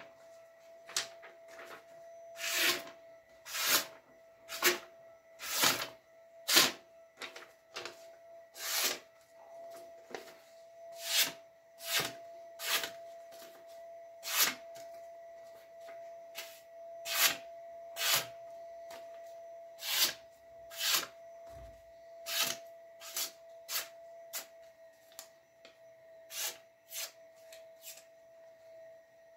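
Hunting knife's freshly sharpened blade slicing through sheets of paper in quick repeated strokes, about one a second, as a sharpness test. A faint steady high hum sits underneath.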